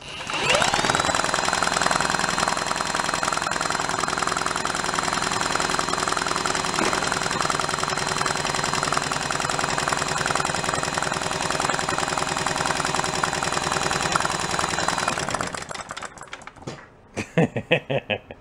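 A cordless drill spins the crankshaft of an antique single-cylinder Briggs & Stratton engine with its cylinder head off, so there is no compression, and the engine turns over with a fast steady rhythm. The drill's whine rises as it gets up to speed just after the start, holds steady, then winds down about fifteen seconds in, followed by a few clicks. The engine is being spun to show oil getting past rings that cannot seal in a worn, oval cylinder bore.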